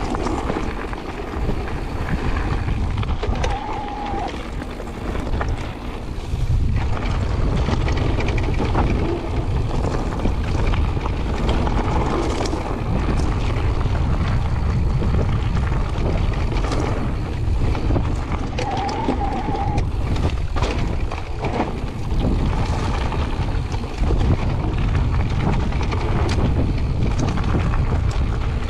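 Wind buffeting the microphone over the crunch of mountain bike tyres on a gravel trail, with frequent knocks and rattles from the bike over rough ground. The low wind rumble gets heavier about six seconds in.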